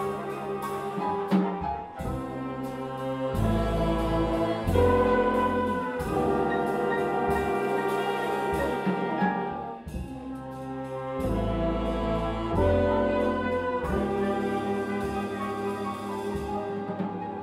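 Big band brass and saxophone section playing sustained chords over bass and drums, with cymbal strikes at the chord changes.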